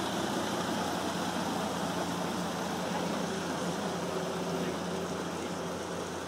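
Army truck's engine running steadily under a continuous rushing hiss, easing off slightly near the end.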